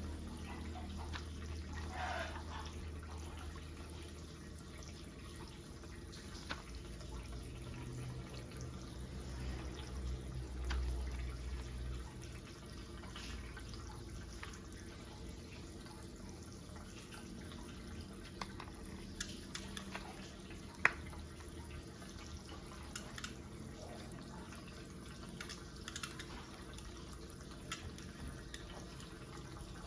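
Scattered light clicks and taps of plastic toy pieces being handled and fitted together, one sharper click about two-thirds of the way through, over a steady low hum.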